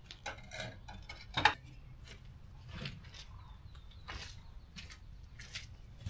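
Scattered scrapes and taps of masonry work: a trowel working mortar on cement block, with one sharp clink about one and a half seconds in.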